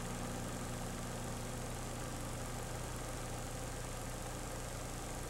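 A steady low hum with several held tones, machine-like and unchanging.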